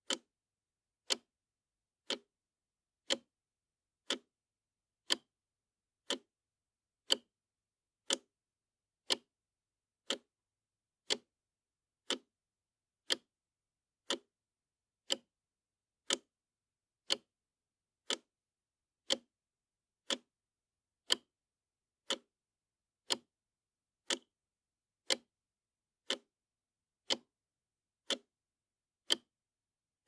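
Wall clock ticking steadily, one short tick a second.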